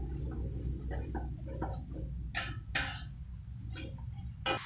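Metal spatula scraping and clinking against a metal wok while stirring thick chili sambal, with a few louder scrapes about halfway through. A steady low hum runs underneath and stops near the end.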